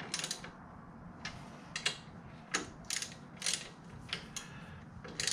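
Hand ratchet wrench clicking in short runs, roughly two a second, as the bolts joining a motorcycle's crash bars and skid plate bracket are run back in.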